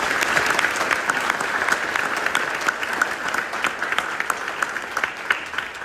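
Crowd applauding, with some sharp single hand claps close by; the applause thins out near the end.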